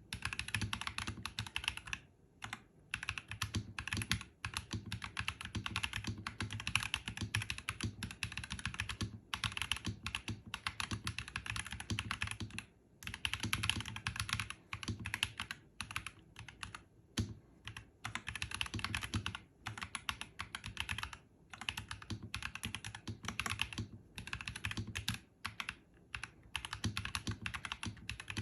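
Fast, continuous typing on a NuPhy Halo 65 mechanical keyboard with Rose Glacier switches: dense runs of crisp keystrokes with a deeper thock beneath, broken every few seconds by brief pauses.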